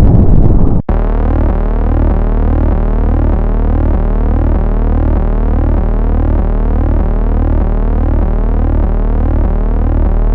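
The tail of a loud explosion sound effect cuts off abruptly just under a second in. A steady, low synthesized sine-wave tone follows, pulsing evenly about twice a second.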